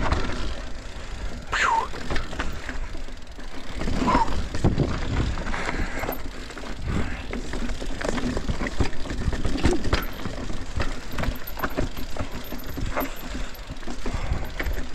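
Mountain bike riding down a dirt and rock trail: a steady rumble of the tyres and bike, with many short clicks and rattles and a few brief falling squeals.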